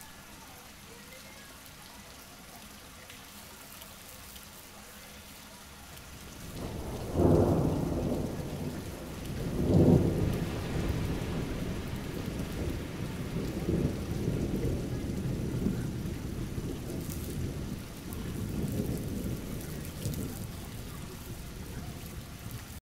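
Steady rain falling, then a thunderclap about seven seconds in that swells again around ten seconds and rolls on as a long low rumble, slowly fading.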